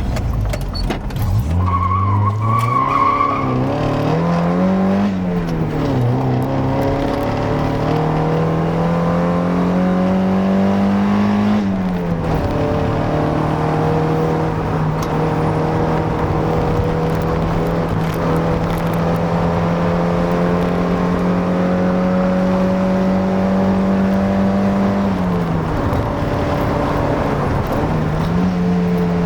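Mazda Miata NA's 1.6-litre four-cylinder engine and near-stock exhaust running under load, its pitch climbing slowly through two long pulls. The pitch drops sharply at about twelve seconds and again near the end, as at a gear change or lift-off. A short high squeal comes about two seconds in.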